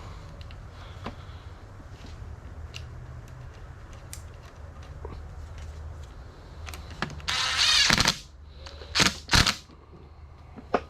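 Hand-work noises on ATV parts: scattered small clicks and rattles, then a loud rasping noise lasting just under a second about seven seconds in, and two short sharp sounds about half a second apart soon after.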